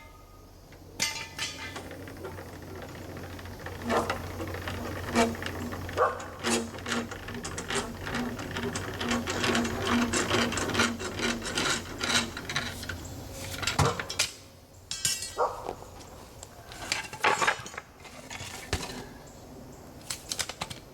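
Scattered metal clicks and clanks of a jack and tools being worked to lower a pickup truck off its supports, with a steady low hum for the first two-thirds and a repeating pulse about twice a second in the middle.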